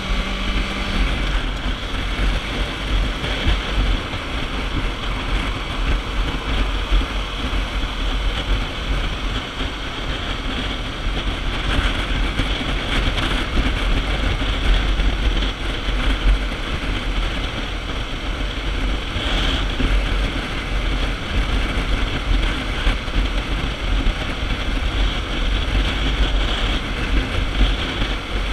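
Kawasaki Ninja 650 riding along at steady street speed: steady wind rush on the microphone over the low drone of the engine and the tyres on the road.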